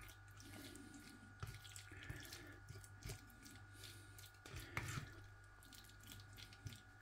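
Faint wet squelching and light scraping of a metal fork stirring macaroni cheese in a plastic microwave-meal tray, with a few soft clicks scattered through, over a low steady hum.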